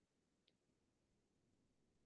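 Near silence.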